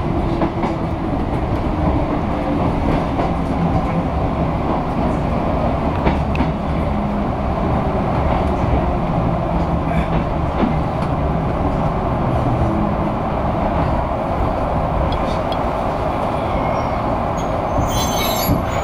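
Yoro Railway 610-series electric train heard from inside the cab as it slows into a station: steady rumble of wheels on the rails, with a motor hum falling in pitch in the first few seconds. Near the end there is a brief high squeal from the wheels and brakes.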